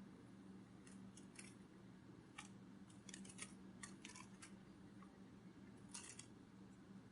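Near silence: a faint low hum with scattered soft clicks and rustles, some of them in quick little clusters.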